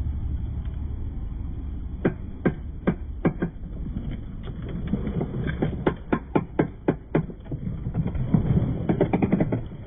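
A series of sharp clicks or knocks over a steady low rumble, spaced at first, about three a second in the middle, and coming quickly in a cluster near the end.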